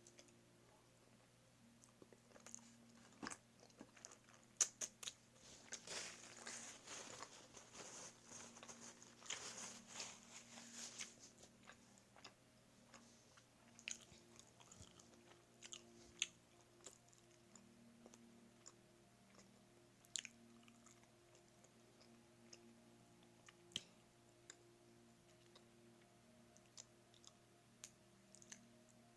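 Quiet chewing and biting of a sausage dog in a bun with chili and ketchup. There is a busier stretch of wet chewing from about five to eleven seconds in, then scattered soft mouth clicks.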